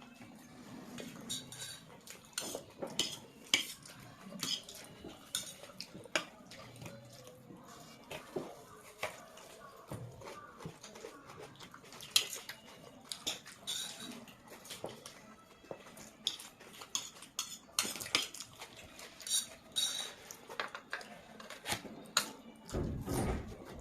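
Cutlery clinking and scraping against plates during eating, in irregular sharp clicks, with a brief low bump near the end.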